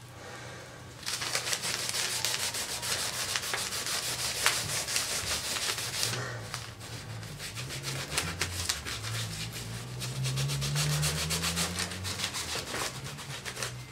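A cloth rubbed back and forth in quick strokes over the grimy, rusted painted hood of a vintage Hoover Junior 119 vacuum cleaner, wiping off the dirt, with a brief lull about six seconds in. A low hum rises in pitch about ten seconds in.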